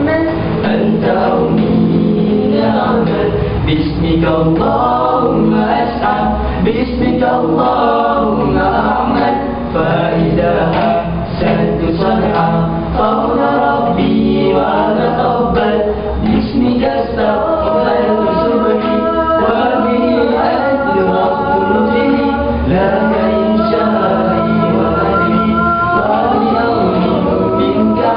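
All-male nasheed group singing a cappella in several-part harmony, without a break.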